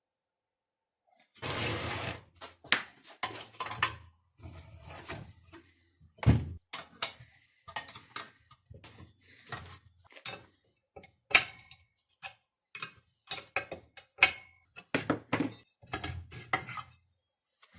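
Irregular knocks, clicks and clinks of metal parts and tools being handled, with a short rushing scrape about a second and a half in.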